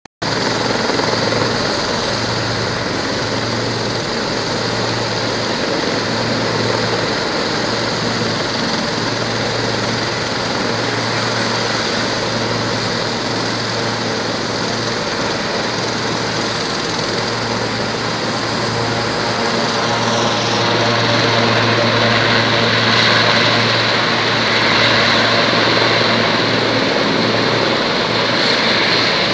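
Helicopters running on an airfield apron: a steady turbine and rotor noise with a low pulsing beat. About twenty seconds in it grows louder and higher.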